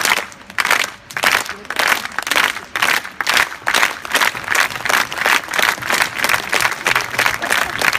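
Crowd clapping together in a steady rhythm, a few claps a second.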